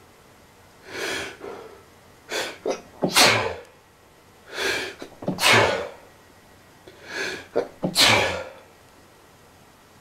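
A man sneezing three times in a row from allergies. Each loud sneeze comes after one or two shorter, quieter breaths or catches, spaced about two and a half seconds apart.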